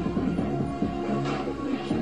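Background music, a song with held instrumental notes at a steady, fairly loud level.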